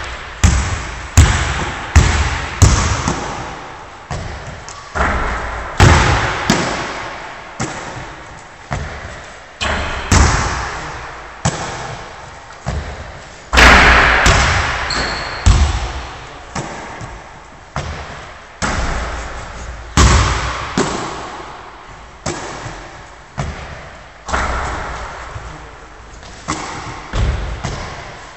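Basketballs thudding and bouncing on a wooden gym floor, with shots clanging off the rim and backboard, one to two seconds apart. Each impact rings on in the hall's echo, and the loudest comes about halfway through.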